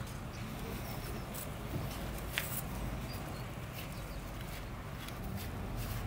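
Steady low outdoor rumble, like wind on the microphone, with scattered light clicks and taps and one sharper click about two and a half seconds in.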